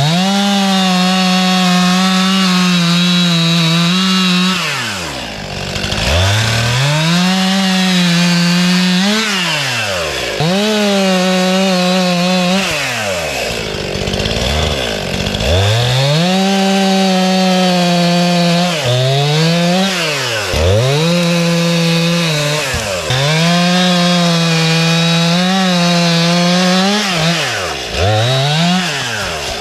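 Stihl two-stroke chainsaw cutting through limbs of a fallen tree: the throttle is held wide open for a few seconds at a stretch, then released so the engine drops toward idle before it revs up again, over and over.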